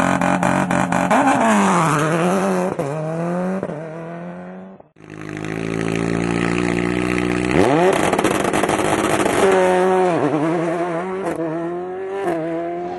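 Rally cars' engines at full throttle, the pitch climbing and falling with each gear change, with a rapid string of crackling pops near the start. The sound drops out briefly about five seconds in. Then a second run comes in: an engine holding steady revs, then jumping sharply up and revving up and down through its gears.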